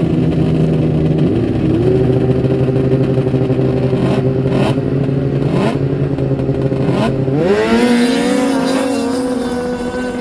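Snowmobile engines running hard, their pitch stepping up a few times and then climbing steeply about seven and a half seconds in before holding a high, steady pitch.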